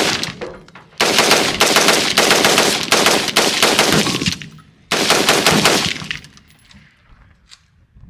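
Rapid-fire gunshots in three strings, the shots coming several a second: a short string at the start, a longer one of about three seconds, then another of about a second.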